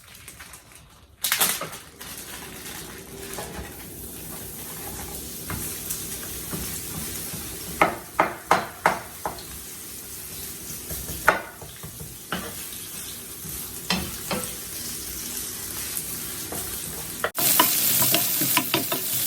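Chopped onion sizzling in hot olive oil in a frying pan, the hiss starting sharply about a second in as it goes in. A utensil stirs it, clacking against the pan several times, and the sizzle jumps louder near the end.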